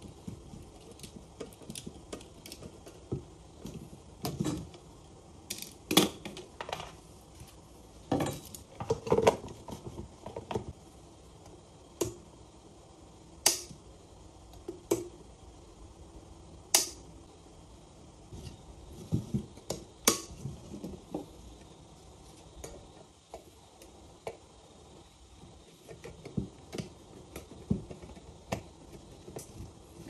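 Irregular clicks, taps and knocks from hands handling a stainless-steel electric kettle, its plastic handle and its base. A cluster of heavier knocks comes in the first third, then a few sharp single clicks several seconds apart.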